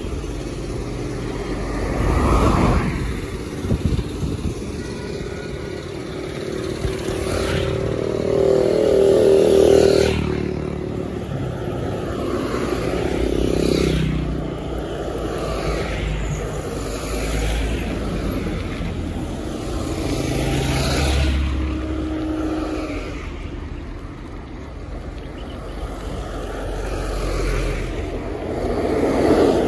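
Street traffic: motor vehicles running and passing under a steady low rumble. Several passes swell and fade, the loudest about ten seconds in and near the end.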